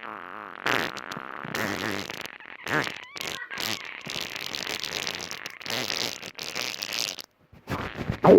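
Real human farts edited together in quick, overlapping succession, some with short squeaky rising pitch. A brief pause near the end, then a loud one right at the end.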